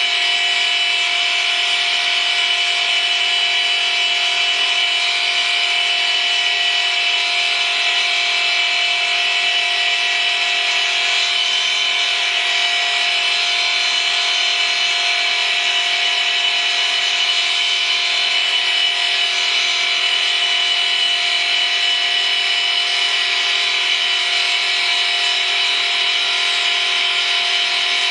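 Vertical-column stone profiling machine cutting a stone sphere: a steady, high grinding hiss with a constant whine.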